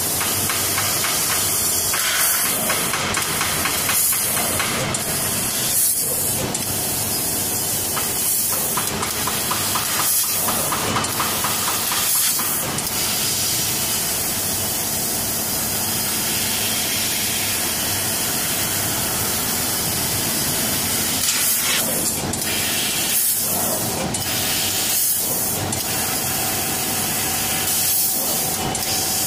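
Laser tube cutting machine cutting a round metal tube: a steady hiss of gas blowing from the cutting head, with short breaks every few seconds.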